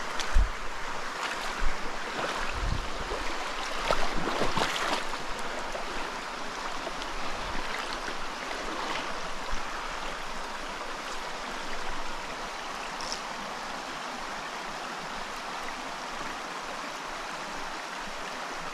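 A small mountain stream running steadily over rock, its water noise even throughout. There are a few low thumps in the first five seconds.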